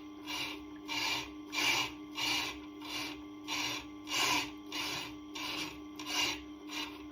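Diamond truing tool of a Tormek TT-50 scraping across a turning Tormek grinding stone. The scrape pulses about one and a half times a second, once per turn of the wheel, which is still out of round. Under it runs a steady hum from the machine.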